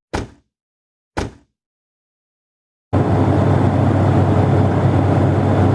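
Two short thuds about a second apart, then silence, then from about three seconds in a steady city-street noise with a heavy low traffic rumble.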